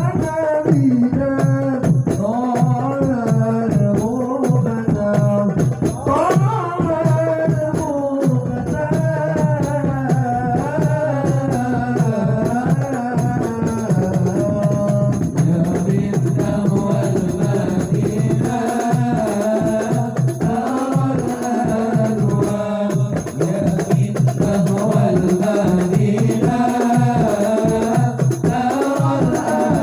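Sholawat devotional music: a sliding, melismatic melodic line over steady hand-drum beats.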